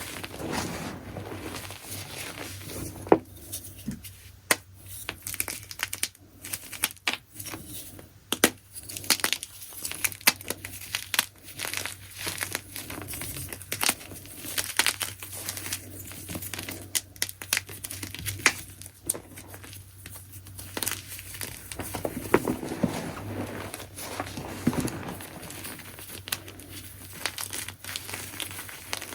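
Chunks of gym chalk being crushed close to the microphone: a dense, irregular run of crisp crunches and crackles with sharp snaps scattered through, turning softer and fuller for a few seconds near the end.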